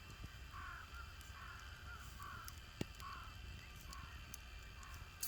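A bird calling faintly in a repeated series of short calls, about two a second, with a single sharp click near the middle.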